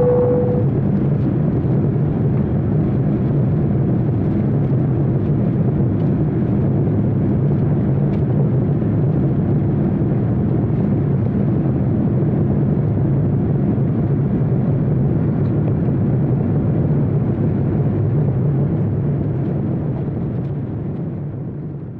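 Steady low mechanical drone of a vehicle's engine, with a short steady tone right at the start. The drone begins to fade near the end.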